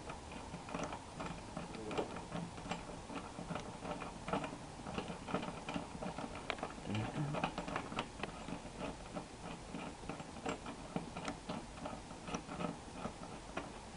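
Irregular light metallic clicks and ticks of a small hand tool turning and tightening the bolts that hold a motorcycle tank-bag ring to the fuel tank, several clicks a second.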